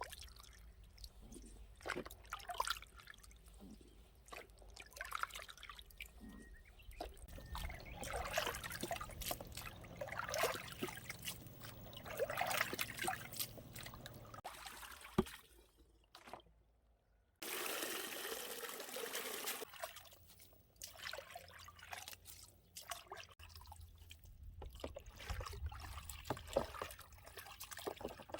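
Water trickling and dripping, with small splashes and clicks of handling. A little past the middle there is a steadier run of water lasting about two seconds.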